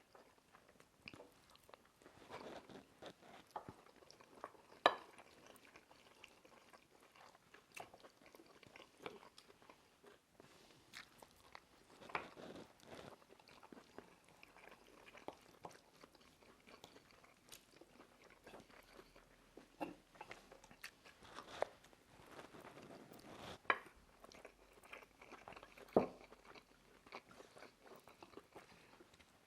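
People eating chicken korma and brown rice fast: steady chewing and mouth sounds, with scattered sharp clicks and a few louder taps.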